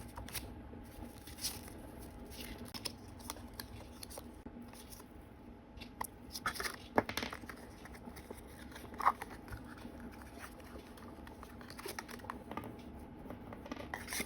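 Paper and plastic packaging being handled, crinkled and torn open by hand while stickers are unboxed: scattered short rustles and clicks, the loudest about seven and nine seconds in, over a faint steady hum.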